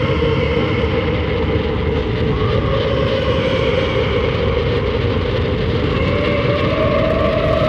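Dense, distorted dark music from a raw black metal and dark ambient recording: a droning wall of sound whose main tone steps up in pitch twice, about two and a half seconds in and again near the end.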